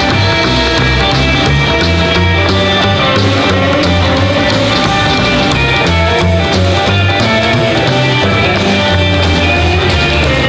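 Loud rock and roll music with a steady driving beat and bass line.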